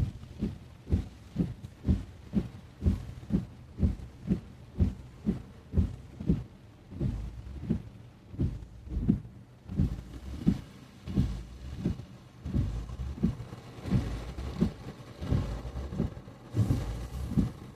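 Car windshield wipers sweeping fast in heavy rain, each stroke a low thump, about two a second, over the rumble of the car driving on wet road.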